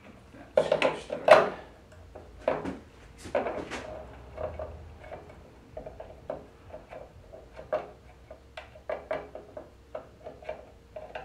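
Hand tool and small metal parts clicking, clinking and knocking against an aluminum CNC router Z-axis carriage during assembly: a cluster of loud knocks about a second in, then lighter irregular clicks.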